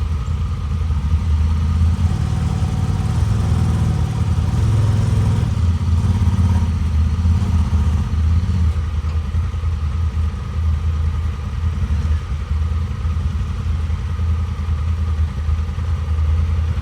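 Off-road vehicle engine running steadily, busier for the first half and evener after about eight seconds.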